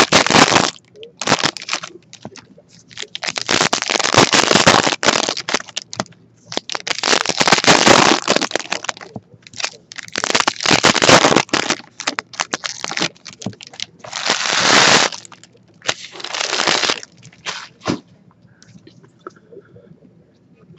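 2016 Topps Stadium Club foil card-pack wrappers being torn open and crinkled. Sharp crackling comes in about seven bursts, each around a second long, with short gaps and fewer bursts near the end.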